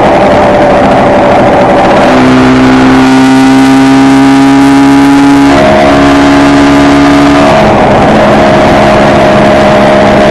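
Kawasaki KR250's two-stroke tandem twin engine running under way at a steady pitch, the engine note shifting about two seconds in and again about five and a half seconds in.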